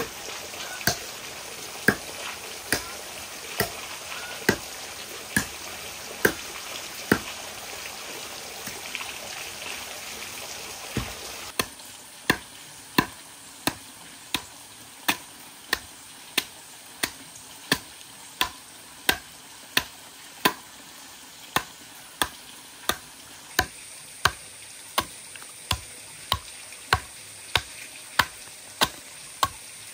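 Chopping into a log by hand: sharp wood strikes at a steady pace of about one a second. Running water hisses under the strikes for the first ten or so seconds, then drops away.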